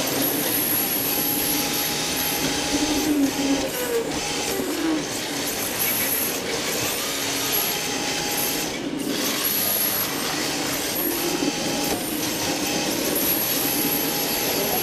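Onboard sound of an electric RC drift car: the motor and drivetrain whine, their pitch rising and falling every second or two with the throttle, over a steady hiss from the tyres sliding on the smooth floor.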